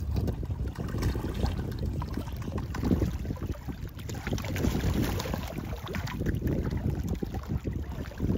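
Small lake waves lapping and sloshing irregularly against the shoreline rocks.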